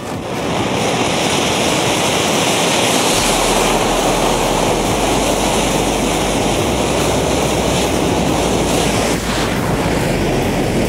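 Steady, loud hissing rush of burning match heads venting as the jet thrust of a match-powered toy truck.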